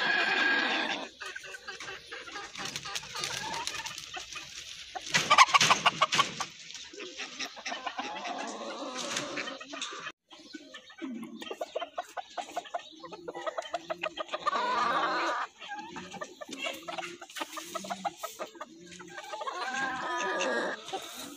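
Chickens clucking and calling: a loud call about five seconds in, a run of short repeated clucks in the second half, and a longer call that rises and falls near the end.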